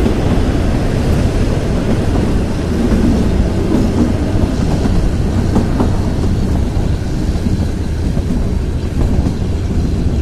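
Kalka–Shimla narrow-gauge train running along the track, heard from an open coach doorway: a steady rumble of wheels on the rails.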